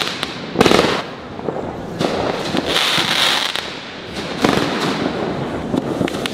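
Fireworks going off: a sharp bang about half a second in and more bangs near two and four and a half seconds. Between them is a dense crackling, loudest around three seconds.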